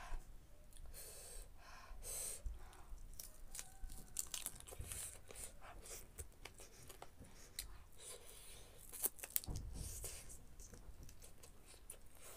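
Close-up eating sounds: meat pulled apart with the fingers and chewed, with many small wet clicks and crackles.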